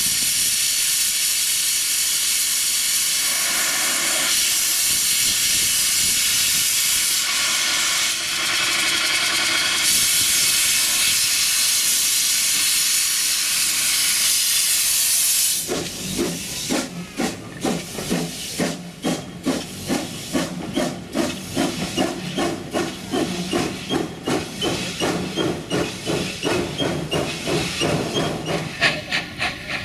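1903 Borsig steam tank locomotive hissing loudly and steadily as steam escapes at the front. About halfway through it gives way to the quick, even chuffs of the engine's exhaust as the locomotive pulls away.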